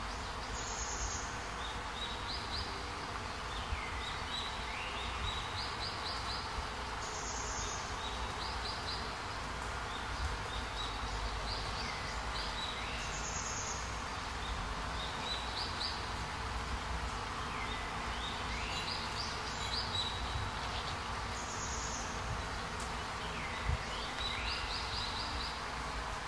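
Forest ambience: a steady hiss with short chirping calls, several quick notes each, repeating every couple of seconds, and a fainter high chirp every few seconds.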